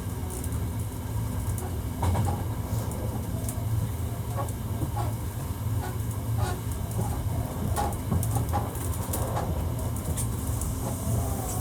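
Hankyu 1300 series electric train running, heard from inside the car: a steady low rumble of wheels on rail, with scattered sharp clicks from the track.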